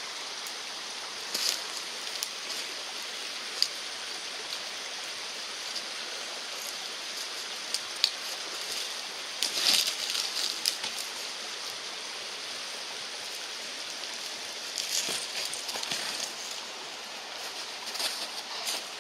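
Steady rushing of a stream or small waterfall, with scattered short crunches and scrapes that cluster about halfway through and again near the end.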